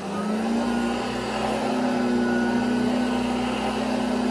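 Hoover ONEPWR HEPA+ bagged cordless upright vacuum running at steady speed after being switched on, a steady motor hum with brush-roll noise.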